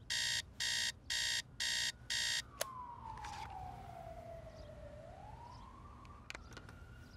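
Digital clock-radio alarm beeping about twice a second, five beeps, then stopping with a click about two and a half seconds in. After it an emergency-vehicle siren wails, its pitch falling slowly and then rising again.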